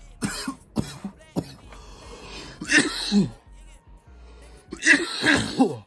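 A man coughing and clearing his throat after inhaling from a disposable vape: a few short coughs, then two heavier coughing bouts, over background music.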